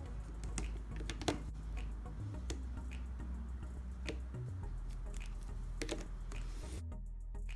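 Background music with steady low notes, over a few irregular sharp plastic clicks from a 3x3 speedcube being turned in the hands.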